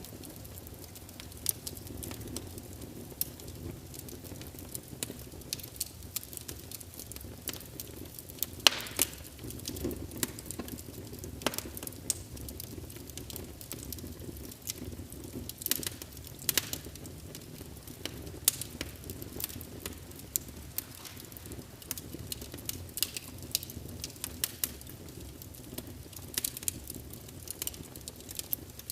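Wood fire of birch logs burning in a fireplace: irregular crackles and sharp pops over a steady low rumble of the flames, with one louder pop about nine seconds in.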